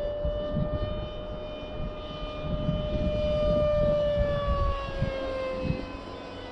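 Small electric RC plane's motor whining steadily overhead, then dropping in pitch and fading about five seconds in as it is throttled back to come in to land. Wind buffets the microphone throughout.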